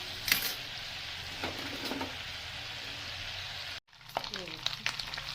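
Churned cream (malai) cooking down in a kadhai to render ghee, a steady sizzle with the occasional scrape of a stirring spoon against the pan. It breaks off for an instant just before four seconds in, then sizzles on with more crackle.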